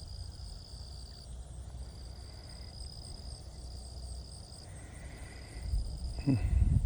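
An insect trilling steadily at one high pitch, with two short breaks, stopping shortly before the end. Near the end a low, choppy rumbling noise gets loud.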